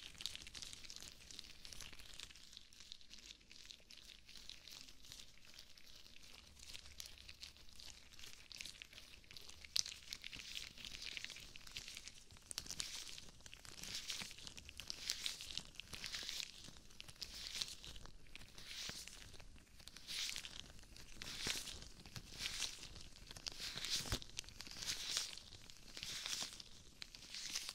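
Rubber gloves rubbing and brushing against a binaural microphone's ears, a close, hissy rustling and crinkling. Partway through it settles into swelling strokes about once a second.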